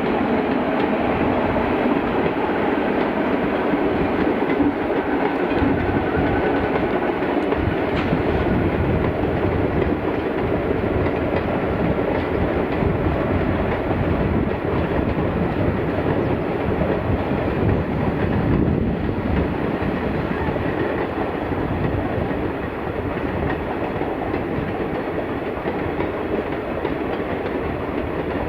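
Long-distance express passenger train running past at speed, its wheels clattering steadily over the rail joints in a continuous loud rumble.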